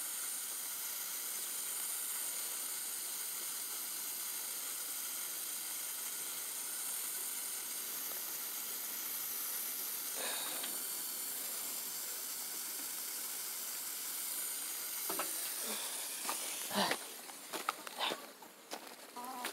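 A steady, high-pitched hiss that stops about three-quarters of the way through, followed by a few sharp clicks and rustles.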